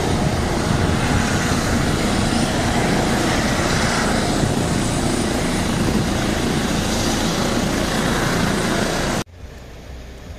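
Helicopter turbines and rotors running steadily on the ground, a loud, dense whine-and-rush with a fast low throb from the blades. It cuts off suddenly about nine seconds in, leaving a much quieter background.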